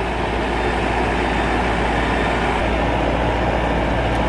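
Rice combine harvester's 102 hp diesel engine running steadily with a deep, even hum.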